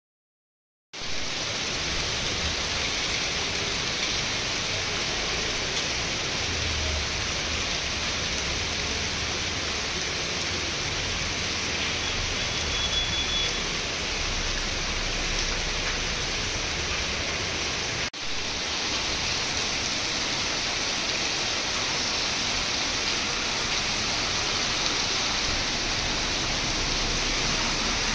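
Heavy rain pouring down, a steady even hiss that starts abruptly about a second in and drops out for an instant about two-thirds of the way through.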